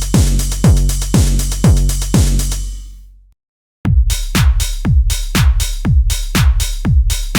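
Korg Triton Extreme VST drum machine patterns. A loop of deep kick drums, each dropping in pitch, about two a second under a bright hiss, fades out about three seconds in. After a short gap a second, busier loop with about four hits a second begins.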